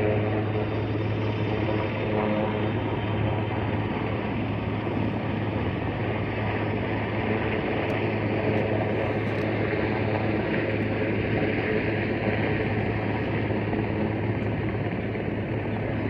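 Helicopter hovering at a distance: a steady, unchanging drone with a low hum underneath.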